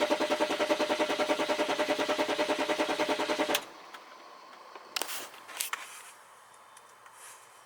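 The starter cranks the BMW 530d's straight-six diesel in a quick, even rhythm without it firing, the sign of the low fuel rail pressure that keeps it from starting. The cranking stops suddenly about three and a half seconds in, followed by a few faint clicks and thumps.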